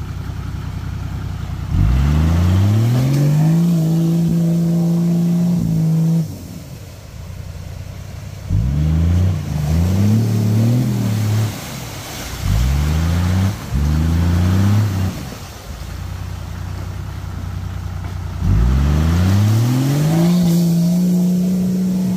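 Toyota Land Cruiser 80-series turbo engine revved hard in bursts as the 4x4 pushes through deep mud: a long surge held at high revs, then four shorter stabs of throttle, then another long rise held high near the end.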